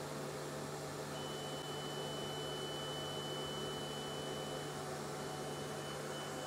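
DWX-52DCi dental milling machine's automatic disc changer moving a material adapter into place: a steady low hum with a thin, high-pitched motor whine that starts about a second in and turns intermittent near the end.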